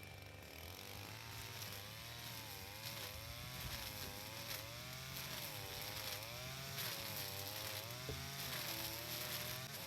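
Engine-driven brush cutter running while cutting grass, its pitch dipping and recovering about once a second as the cutting head sweeps through the growth under load.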